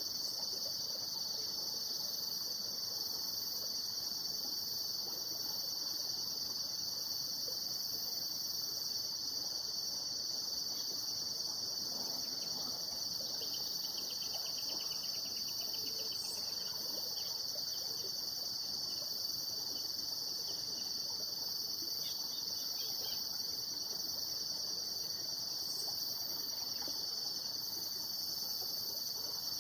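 Steady, high-pitched insect chorus, unbroken and even in level, with a brief fainter trill from another creature partway through.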